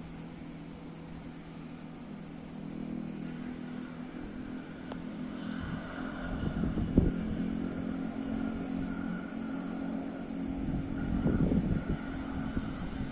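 Bus engine hum as a bus passes on the road below, getting louder from about three seconds in, with a low rumble that swells twice, around seven and eleven seconds in. A single sharp click about five seconds in.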